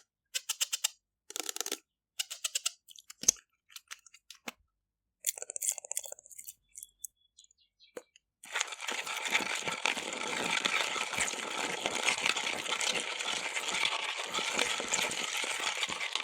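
Slime being handled: first a string of short, separate clicks and crackles with pauses between them, then from about halfway a dense, steady crackling as the slime is worked without a break.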